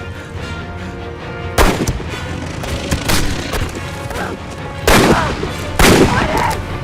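About four loud gunshots at uneven intervals in an action-film soundtrack, each with a short echoing tail, over a steady low film score.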